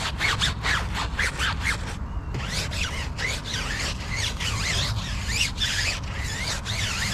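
Rapid squeaky rubbing strokes, several a second, with a short break about two seconds in, over a steady low rumble.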